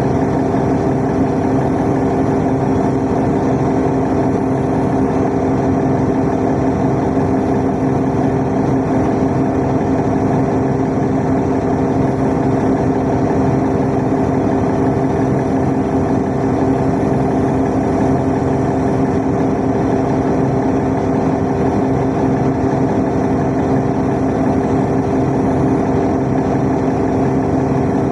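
Steady cabin noise of a city bus underway: an even engine and drive hum with a few held low tones. It does not change.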